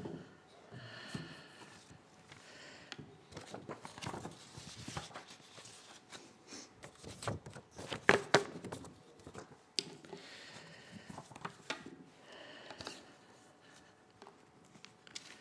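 Sheets of paper rustling and a book being handled on a wooden lectern close to a microphone, with scattered small knocks and clicks and a couple of louder knocks a little past halfway.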